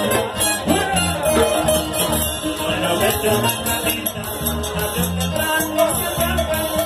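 Live band music played loud through stage speakers: a violin over a steady, repeating bass line, with a shaken rattle keeping the beat.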